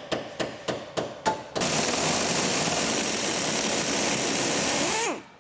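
A few sharp metallic knocks, then about a second and a half in, a pneumatic wrench runs steadily and loudly for about three and a half seconds, spinning the corroded top nut off a Land Rover Defender 110's shock absorber, and winds down in pitch as it stops.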